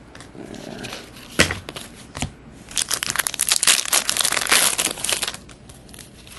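Foil wrapper of a 2010-11 Artifacts hockey card pack being torn open and crinkled by hand: two sharp snaps, then about two and a half seconds of dense crinkling.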